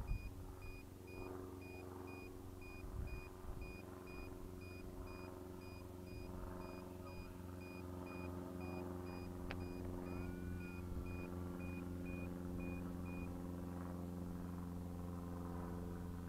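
A steady low mechanical hum with a high electronic beep repeating at an even rate, which stops about thirteen seconds in.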